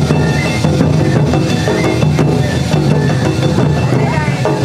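Awa odori hayashi band playing: big drums and shime-daiko drums beating a brisk rhythm with a metal kane gong clanging, and a shinobue bamboo flute playing the melody above.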